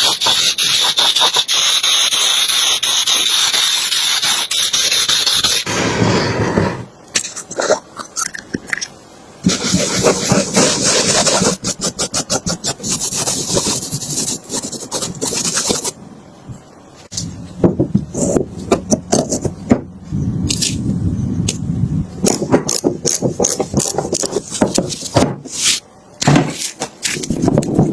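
Spray hiss that stops about six seconds in, followed by stretches of scraping and many short clicks and knocks of hand work on metal parts.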